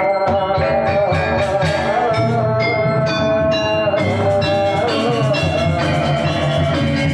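Balinese gamelan music: bronze metallophones and gongs struck in a quick, ringing rhythm, with an abrupt change in the sound about four seconds in.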